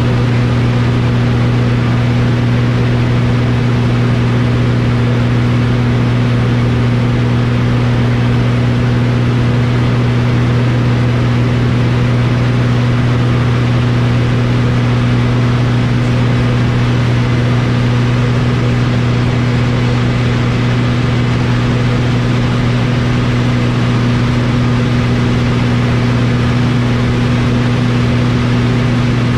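Piston engine and propeller of a light aerobatic aircraft running steadily, heard from inside the cockpit as a constant drone that holds one pitch.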